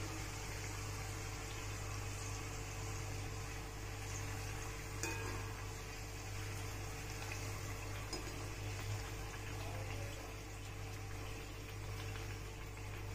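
Comb-shaped kadakani dough frying in hot oil: a steady sizzle over a low hum, with a small knock about five seconds in.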